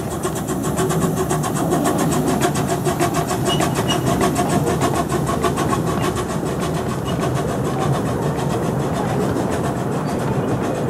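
Small steam locomotive working past with a quick, even beat of exhaust chuffs, the beat clearest in the first half, then its passenger carriages rolling by on the track.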